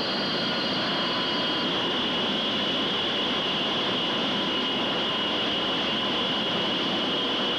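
Steady jet noise from a Douglas EA-3B Skywarrior's twin turbojets as it flies past: an even roar with a steady high whine.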